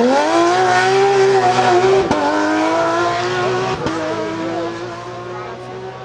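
Porsche 911 GT3 rally car's flat-six engine revving hard as it accelerates out of a bend. The note climbs, breaks briefly twice, at about two and about four seconds in as the driver changes up, and fades as the car pulls away.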